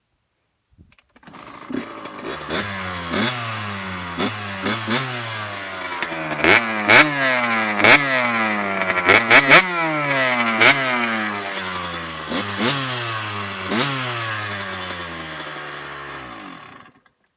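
Dirt bike engine starting, then revved in repeated quick blips, each rev rising sharply and dying back, with sharp cracks at several of the peaks. It shuts off abruptly near the end.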